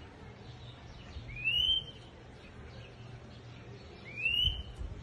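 Caged black songbird, a 'negrito' whistler, giving two clear rising whistles about three seconds apart, each lasting about half a second.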